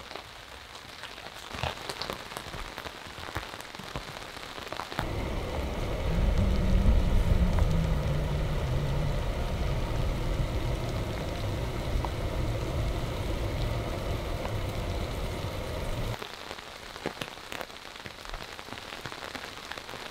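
Rain falling on a tarp shelter and the woods around it, with scattered drips. For about eleven seconds in the middle a louder, deeper rumbling layer comes in over the rain and cuts off suddenly.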